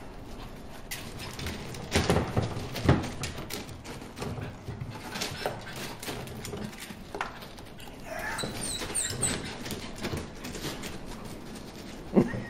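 A dog nosing and poking at a small fish pond: scattered sharp knocks and scuffles, the loudest about two and three seconds in and again near the end.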